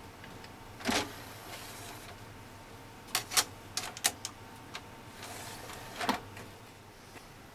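A disc being loaded into a desktop computer's CD drive: clicks and knocks of the disc and tray, with a short whirr about a second in and another about a second long near six seconds in.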